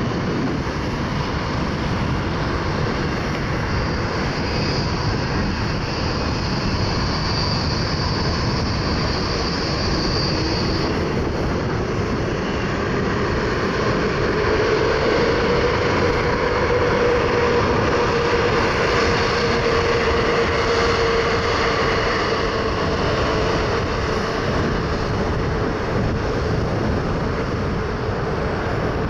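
Boeing 787-8 Dreamliner's jet engines at taxi power as the airliner rolls past: a steady rushing noise with a high whine that fades out about ten seconds in and a lower whine that sets in about halfway.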